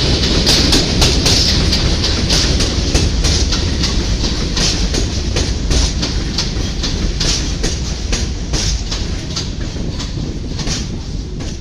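R62 subway train moving along the platform on elevated track: steel wheels clacking over rail joints in a quick, uneven run of sharp clicks over a steady rumble. The sound gradually dies down toward the end as the train slows.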